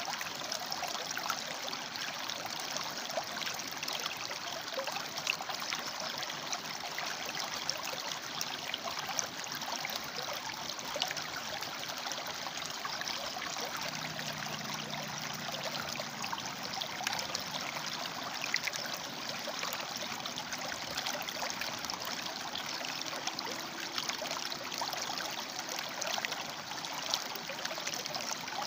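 River water flowing over and between rocks: a steady rush with many small trickles and splashes.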